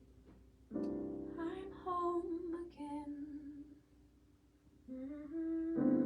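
Acoustic guitar chord strummed and left ringing, with a voice singing a slow wordless melody over it; another strummed chord near the end.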